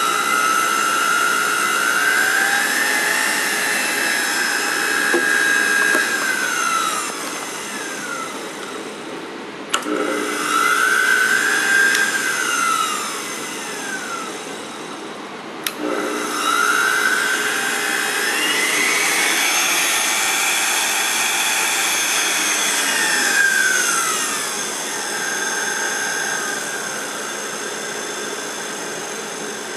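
Spindle motor of a Light Machines proLIGHT benchtop CNC machining center whining as it runs up and back down in speed three times, the pitch climbing, holding, then sliding down. A sharp click comes just before the second and third run-ups.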